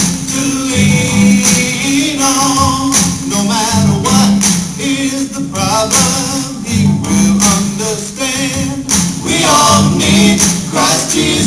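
Upbeat Christian pop song with singing over a steady beat of drums and tambourine-like percussion.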